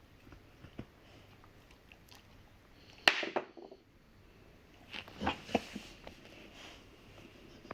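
A Rottweiler gnawing on a hard hoof chew: scattered small clicks and crunches, with a sharp loud crack about three seconds in and a few more loud crunches just after five seconds.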